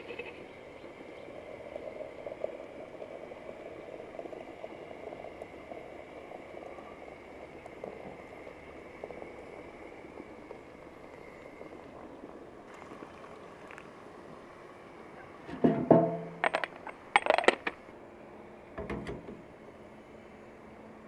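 Hot water running from a samovar's tap into a porcelain teapot. Near the end, sharp clinks of porcelain on metal as the teapot is handled and set on top of the samovar; these are the loudest sounds.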